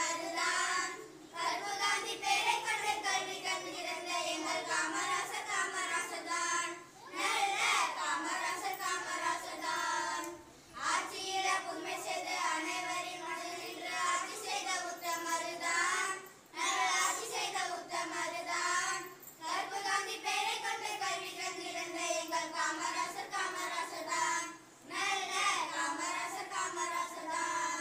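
A small group of children singing a Tamil song together, in sung phrases of a few seconds separated by short breaks for breath.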